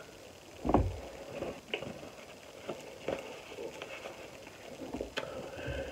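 Small handling sounds while face scrub is rubbed in by hand: a dull thump just under a second in, then scattered light taps and clicks.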